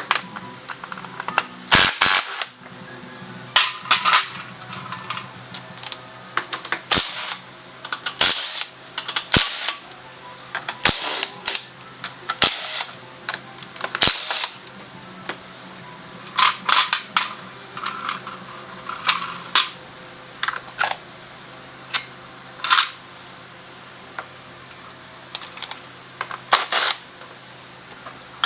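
Irregular sharp metallic clanks and knocks of hand tools against metal, about one or two a second, some in short clattering bursts, over a faint steady low hum.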